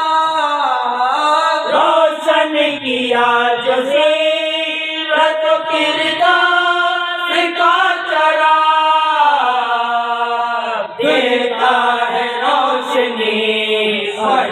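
Unaccompanied voice chanting a devotional recitation, such as a naat, in long held notes that slide between pitches, with short breaths between phrases.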